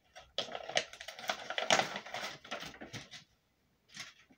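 Crinkling and rustling of Mylar food-storage bags and oxygen-absorber packets being handled, a dense run of crackles for about three seconds, then one short rustle near the end.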